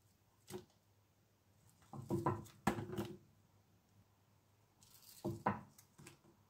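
Raw onion slices dropped by hand into a pan of oil: soft splashes and taps against the aluminium pan in three short clusters, about half a second in, around two to three seconds, and again near the end. There is no steady sizzle, as the oil is not yet hot.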